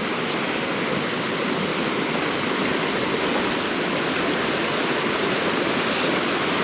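Steady rush of a waterfall on a mountain creek, falling water with no let-up.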